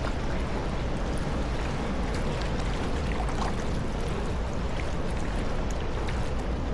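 Steady rumble of wind and harbour water around a kayak, with faint scattered drips and small splashes.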